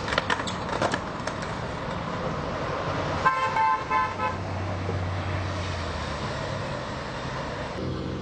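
Street traffic noise with a car horn honking once for about a second, a little over three seconds in. A few sharp knocks in the first second or so.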